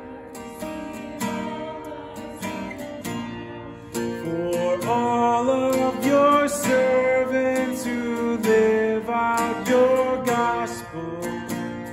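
Steel-string acoustic guitar strummed in a steady rhythm, getting louder about four seconds in as a melody line comes in.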